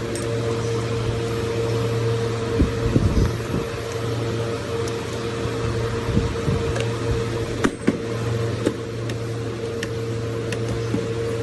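A steady electrical or fan hum runs throughout. A short cluster of knocks comes about three seconds in, with single clicks and knocks later on, like parts or tools being handled.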